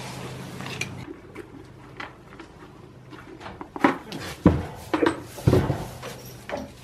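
Goats moving about in a pen: scattered clicks and knocks, with a few louder thumps about four to six seconds in.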